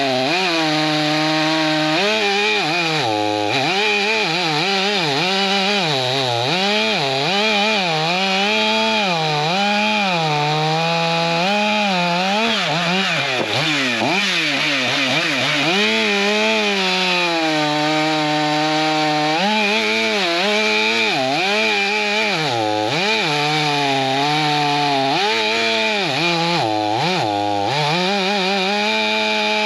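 Stihl MS 500i fuel-injected two-stroke chainsaw cutting through hardwood. The engine note rises and falls continually as the chain loads up in the cut, with a few brief dips in pitch.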